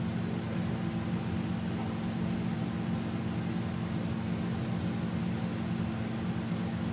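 Steady low mechanical hum with hiss, even in level throughout.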